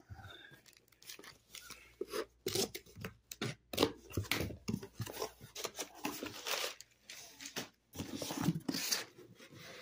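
Cardboard shipping box and its packing paper being handled: irregular rustling, scraping and tearing as the flaps are moved and the paper is pulled about.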